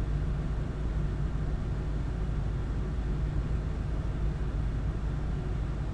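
AMD Wraith Prism stock CPU cooler fan spun up to high speed under a rendering load: a loud, steady rushing noise, heaviest in the low end, likened to a jet engine.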